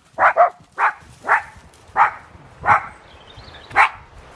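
Jack Russell terrier barking in an excited run of about seven sharp barks: a quick pair at the start, then single barks that come more slowly.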